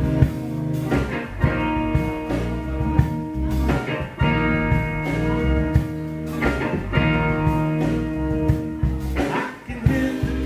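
Live blues band playing an instrumental passage: electric guitar chords over a drum kit and bass.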